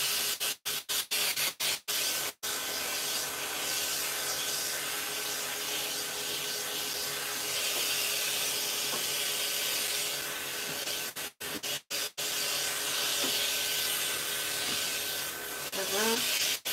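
High-velocity pet dryer blowing a steady rush of air through its hose onto a long-haired cat's coat, with a faint motor whine under the hiss. The sound drops out for split seconds several times near the start and again about eleven seconds in.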